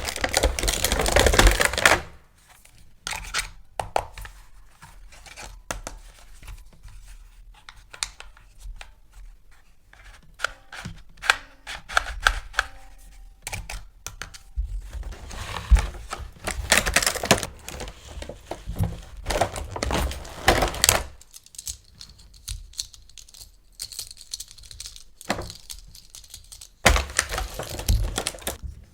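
Toy packaging being unboxed by hand: several bursts of tearing and rustling, each a second or two long, with many scattered clicks and knocks between them.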